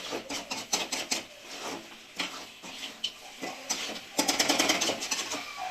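Spoon stirring and scraping chicken with masala in a pan as it fries, a quick irregular run of clicks and scrapes over a sizzle.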